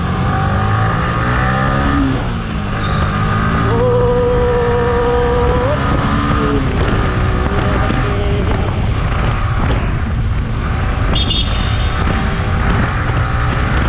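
Sport motorcycle engine accelerating through the gears, its pitch climbing and dropping briefly at upshifts about two and six seconds in, over a steady rush of wind on the microphone.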